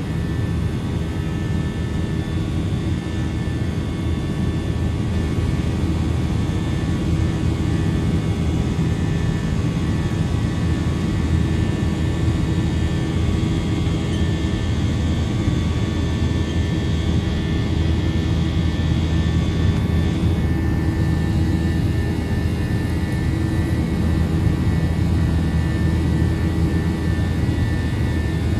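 Airbus A321's jet engines heard from inside the cabin during the climb after takeoff: a steady low rumble with a few steady whining tones over it. A high whine drops away about two-thirds of the way through.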